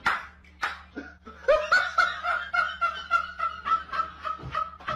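A person laughing in quick, breathy snickers, a fast run of short repeated pulses that starts about a second and a half in, after a few short sharp breaths.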